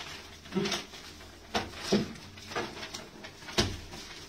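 Paper ballots being handled on a wooden table: sheets rustling and slips set down with a few irregular short knocks, the sharpest about three and a half seconds in.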